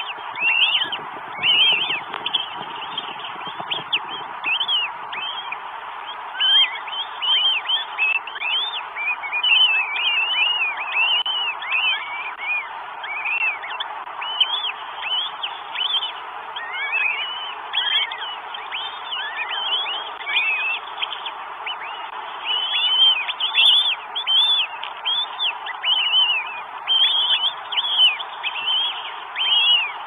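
Northern goshawk chicks giving thin, high begging chirps in quick succession while being fed, over a steady background hiss.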